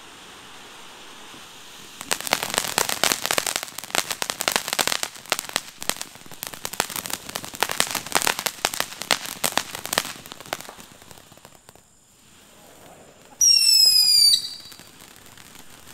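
Ground fountain firework hissing, then breaking into dense crackling about two seconds in that goes on for about eight seconds before dying away. Near the end a loud, high whistle sounds for about a second, falling slightly in pitch.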